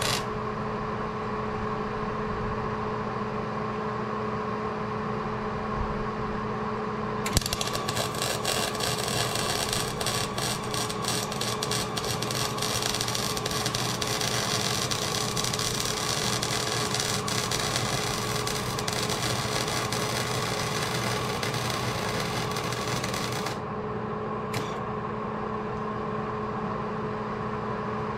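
MIG welding arc crackling and sizzling through one continuous bead on steel U-channel, starting about seven seconds in and cutting off sharply about sixteen seconds later, with one brief blip of arc soon after. Under it runs the welding machine's steady hum.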